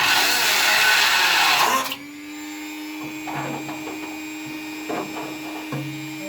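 A loud rushing burst from a workshop tool stops abruptly about two seconds in. A steady machine hum carries on under a few faint knocks.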